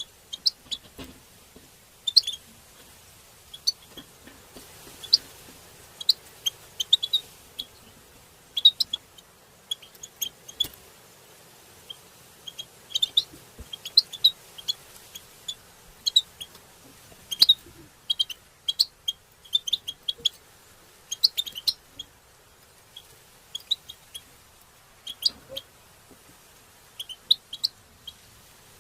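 European goldfinch call notes: short, sharp chirps repeated at irregular intervals, sometimes in quick runs of two or three.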